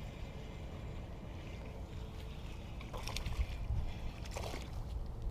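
Steady low rumble of wind on the microphone while a small bass is reeled in, with a few short noisy bursts about three seconds in and again near the end.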